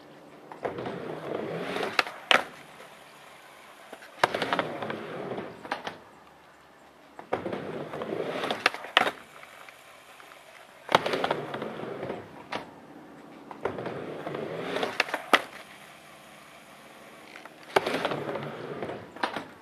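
Skateboard wheels rolling up and down a quarter-pipe ramp, each run a swelling rumble that ends in sharp clacks of the board hitting the ramp. This repeats about six times.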